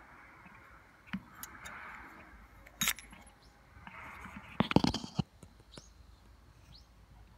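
Handling noise from hand-held camera gear: scattered clicks and a sharp cluster of knocks about five seconds in. A few short, high, rising bird chirps follow near the end.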